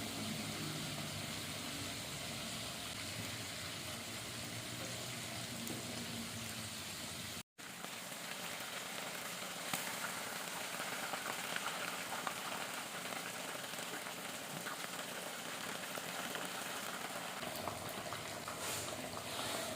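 Food frying in hot oil, a steady sizzling hiss with fine crackling pops. It cuts out abruptly for a moment about seven and a half seconds in, then carries on.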